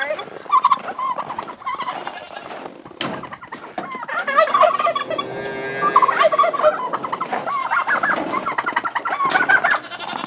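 Poultry calling over and over in quick warbling runs of a second or two.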